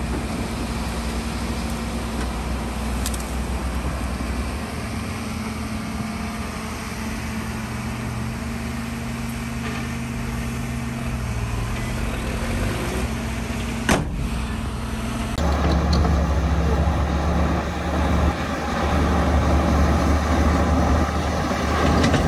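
Diesel engines of heavy earthmoving machinery running steadily, with a sharp knock about 14 seconds in. About two-thirds of the way through, the sound changes abruptly and a louder low engine sound takes over.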